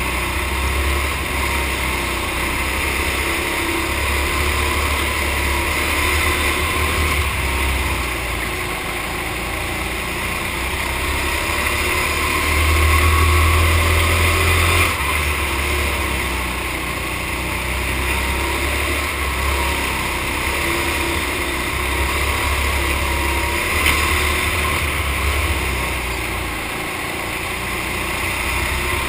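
Racing go-kart engine running hard around a lap, its pitch rising and falling as the driver accelerates and lifts through the corners, over a constant low rumble; it is loudest about halfway through.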